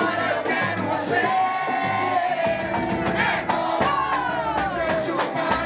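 Music with singing: voices holding and sliding notes over a steady band.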